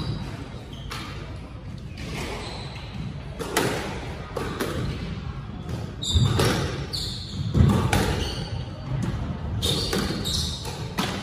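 Squash rally: the ball is struck by rackets and smacks off the court walls and floor in irregular sharp hits a second or two apart, with short squeaks of shoes on the wooden floor.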